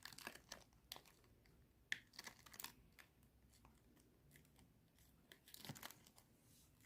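Scissors cutting a thermoformed plastic night-guard sheet: faint, irregular snips in a few short clusters.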